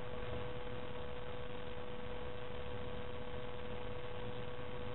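Steady electrical hum with a faint hiss, one thin constant tone over the background noise; no other sound.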